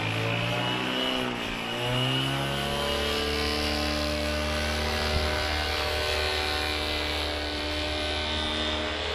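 Paramotor engine and propeller running in flight. Its pitch dips and rises in the first two seconds, then holds steady.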